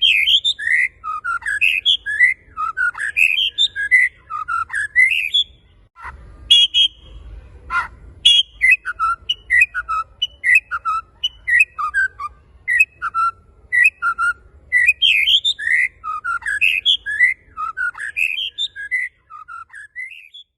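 White-rumped shama (murai batu) singing a fast, unbroken run of varied whistled notes, each sliding up or down in pitch. About six to eight seconds in, the phrase briefly changes to a few held tones and a falling sweep, then the rapid whistling resumes.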